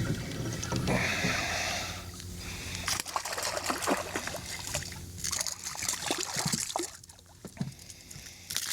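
Water splashing and dribbling beside a kayak as a hooked speckled trout is brought to the boat, with a run of short splashes in the middle.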